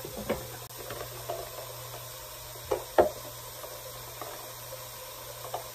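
Light knocks and clatters of a plastic cup and toothbrush holder being handled on a bathroom counter, a few scattered taps with the loudest about three seconds in, over a steady faint hiss.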